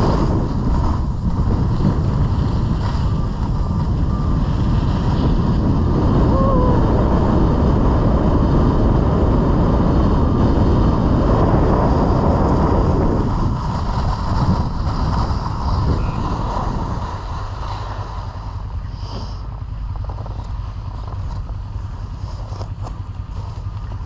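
Wind buffeting a GoPro action camera's microphone together with a snowboard scraping and sliding over packed snow on a downhill run. The rush is loud at first and drops to a lower, steadier rumble about two-thirds of the way through.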